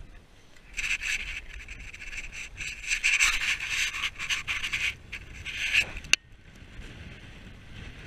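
Rough scraping and rubbing noise lasting several seconds, ending in a sharp click about six seconds in.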